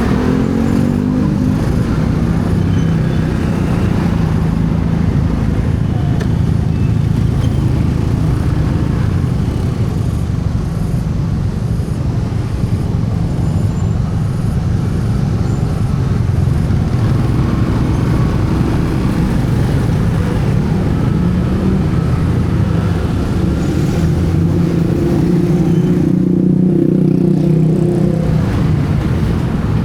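Steady vehicle engine and road noise from a moving ride, a low engine note running throughout, with a higher engine tone for a few seconds near the end.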